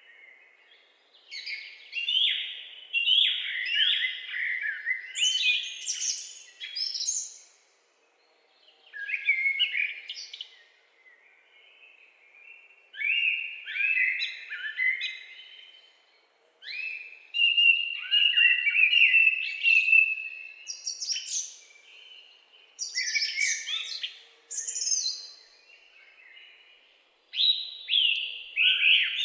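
Songbirds singing: phrases of quick, high chirping notes come every few seconds, with short pauses between them.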